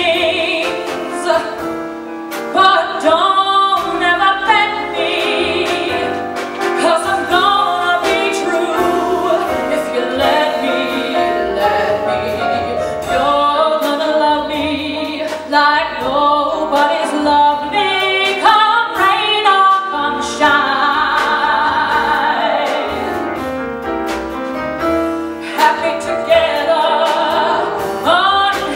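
A soprano singing a jazz standard with wide vibrato, backed by a trio of piano and upright double bass.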